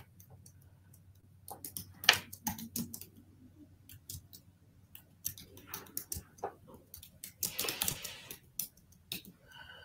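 Typing on a computer keyboard: irregular keystrokes and clicks, with a quick flurry of them near the end.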